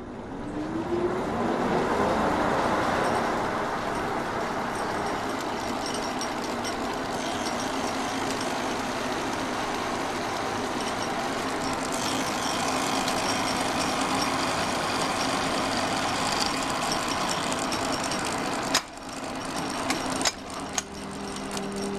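Workshop line shaft starting up with a rising whine, then running steadily with a clatter of belts and gearing as it drives a 1910 Black Forest clock-wheel cutting machine. The din dips abruptly near the end, with a few sharp clicks.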